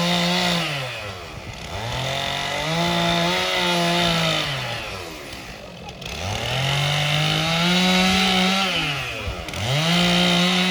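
Chainsaw carving wood, the engine revving up and dropping back in about four surges as it cuts in short passes.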